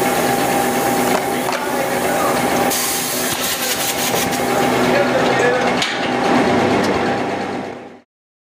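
Plastic blow-moulding machine running as molten plastic is extruded into the mould: a steady mechanical hum with a few sharp knocks. It cuts off suddenly about eight seconds in.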